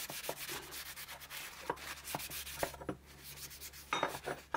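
Cloth rag rubbing back and forth over the steel body of an old adjustable spanner on a wooden bench, wiping off grime with white spirit. The rubbing goes as a run of quick scrubbing strokes, with a short lull about three seconds in and a couple of light knocks near the end.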